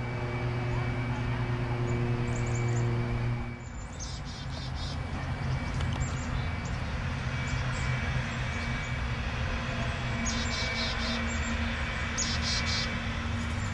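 Steady distant traffic noise, with a low engine hum that stops about three and a half seconds in. A small bird chirps in short rapid bursts three times.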